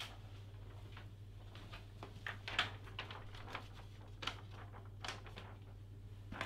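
A printed sheet of paper being handled: a few short rustles and light knocks, the loudest about two and a half seconds in, over a steady low hum.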